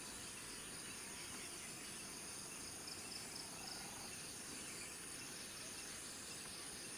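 Insects calling in a steady, high-pitched drone, with a faint pulsing trill joining in a few seconds in.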